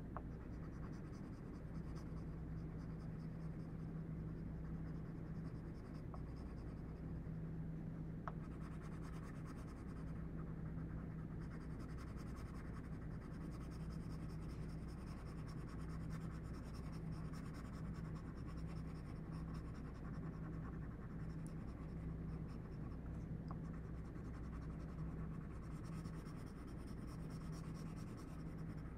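Pencil shading on paper: rapid, scratchy back-and-forth strokes that come and go in stretches as the shading is blended from dark to light. A steady low hum runs underneath.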